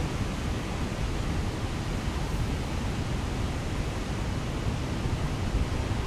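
Steady rushing of the Krimml Waterfalls: an even wash of falling water with no breaks.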